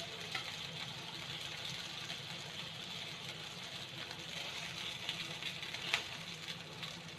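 Hot oil sizzling steadily in a frying pan after the steak pieces have been fried, with one sharp utensil clink about six seconds in.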